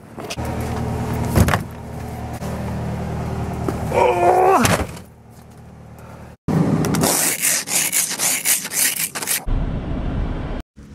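A car engine running with a steady low hum, a click and a short wavering squeak. Then quick rustling and scraping from bags being handled in the car's open trunk, and a brief low rumble near the end.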